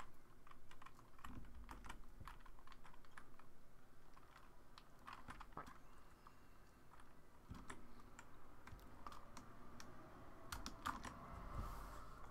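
Faint computer keyboard typing: irregular keystrokes with short pauses, as a line of code is entered and run.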